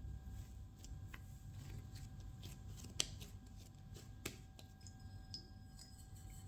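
Light, scattered clicks and rustles of hands handling dough or utensils on a worktop, with one sharp tap about three seconds in and a smaller one a second later, over a low steady hum.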